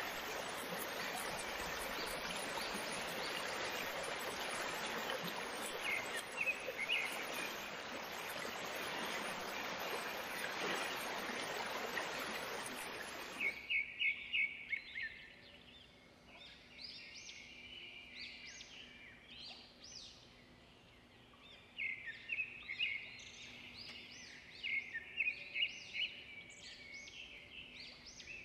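Steady rushing of flowing water with birds chirping over it; the water cuts off suddenly about halfway through, leaving birds chirping in short clusters.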